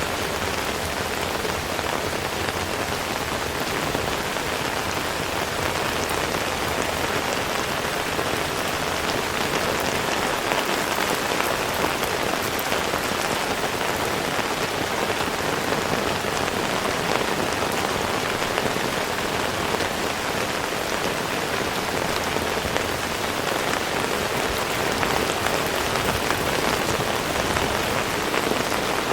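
Heavy rain falling steadily, a dense even patter of drops without let-up.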